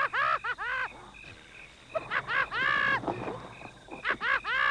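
A man laughing wildly in quick rising-and-falling peals. There is a lull about a second in with short high chirps, then more peals near the end.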